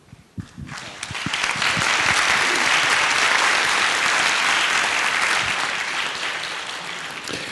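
Audience applauding: the clapping builds about a second in, holds, then slowly dies away near the end.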